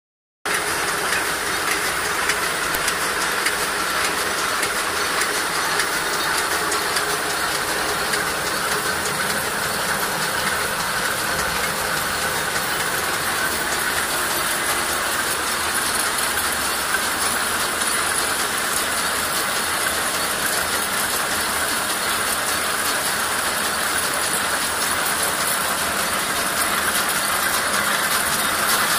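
Paper-converting machines running at speed, folding white paper into stacks: a steady, loud mechanical clatter of rollers and folding gear over a constant hiss.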